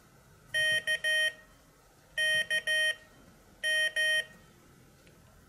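Morserino-32 Morse trainer's sidetone beeping from its built-in speaker as Morse is keyed on its paddle. Three characters are sent: dah-dit-dah, dah-dit-dah, then dah-dah, the letters K, K and M, as steady mid-pitched beeps.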